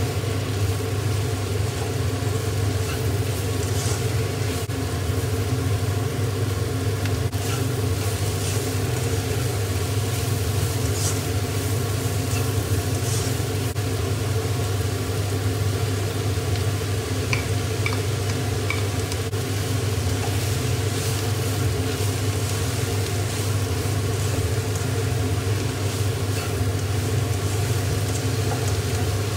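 Vegetables stir-frying in a nonstick wok: sizzling, with scattered scrapes and clicks of a slotted spatula tossing them, over a steady low hum.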